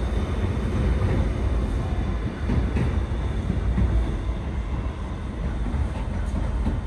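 New York City subway train running on the tracks: a steady heavy rumble with a few faint wheel clicks, easing a little in the second half.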